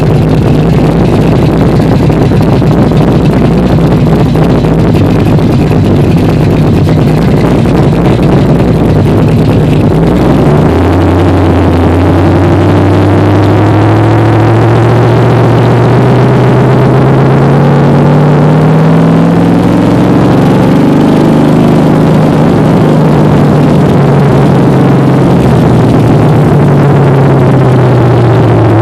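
Big-block Chevrolet V8 heard loud from inside the cabin, idling with a deep rumble, then about ten seconds in pulling away, its note climbing steadily for about ten seconds before easing back down.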